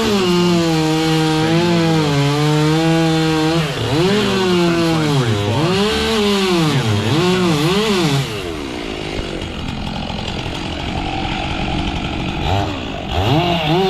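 Chainsaw running at high revs under load, then revved up and down several times in quick succession. About eight seconds in it drops to a quieter, rougher sound, and it revs up again near the end.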